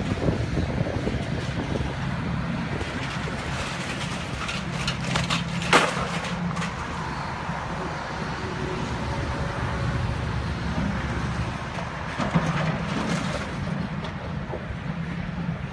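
Tracked excavator's diesel engine running, its note swelling and easing as it works a building down, with crashes of falling wood and metal debris, the sharpest about six seconds in and another a little after twelve seconds.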